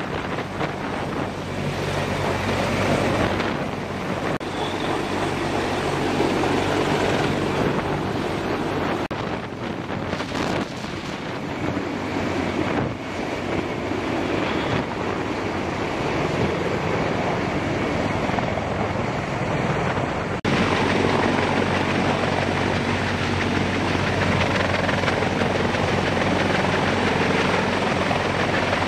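CH-53 heavy-lift helicopter's rotor and turbines running steadily while it hovers and flies with a slung load, with wind buffeting the microphone. The sound changes abruptly about two-thirds of the way through.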